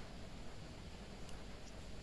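Faint steady hiss of room noise, with a couple of faint light clicks a little after a second in as plastic pry picks are handled.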